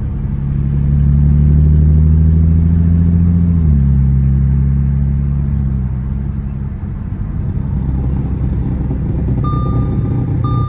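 S5 car's engine running with a steady drone that drops in pitch a little over a third of the way in, then gives way to a rumble as the car moves off. Near the end a parking sensor starts beeping in short repeated tones. Some drivetrain noise remains, which the owner thinks may still mean a new flywheel.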